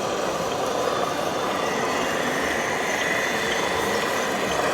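Radio-controlled model trucks and construction machines running steadily, with an engine-like drone and motor noise.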